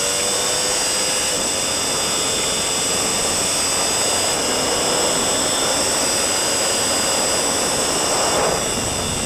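Steady rush of wind over a sport motorcycle, with its engine under full throttle, accelerating along a straight at over 200 km/h in the top gears.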